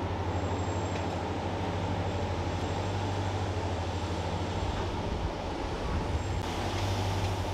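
Steady low engine rumble with a pulsing hum.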